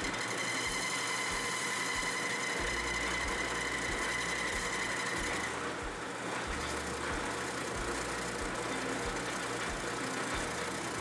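Metal lathe running while a cutting tool turns a steel workpiece: a steady mechanical running noise with a steady high tone from the cut that drops away about halfway through, where the sound changes.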